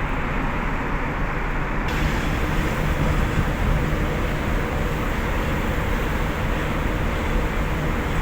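Steady rumble of ship's machinery mixed with wind noise aboard a cargo ship, the hiss turning brighter abruptly about two seconds in.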